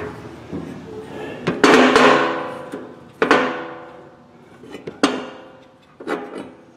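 A cut steel bar knocking against a cast-iron barrel-stove door four times, each metal clank ringing out and fading.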